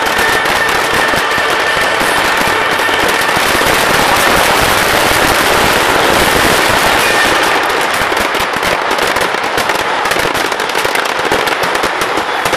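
Fireworks finale barrage: a dense, rapid, continuous crackle of many shells and firecrackers exploding, loudest through the middle and thinning into more separate bangs in the last few seconds.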